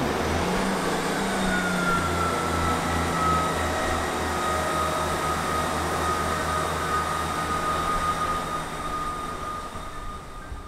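Class 158 diesel multiple unit pulling out of the platform. Its diesel engine runs with a steady, evenly pulsing throb under a high whine that slowly falls in pitch, and it all fades away as the train draws off near the end.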